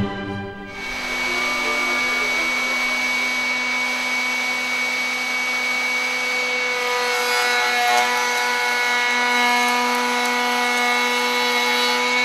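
Table-mounted router running at a steady whine, its Freud 45-degree lock miter bit cutting a board that is pushed through with a push block; the cutting noise grows rougher about halfway through.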